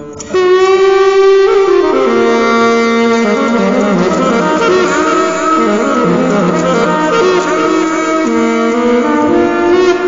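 Saxophone playing a melodic phrase. It opens on a held note, steps down through lower notes, and climbs back to a held note near the end.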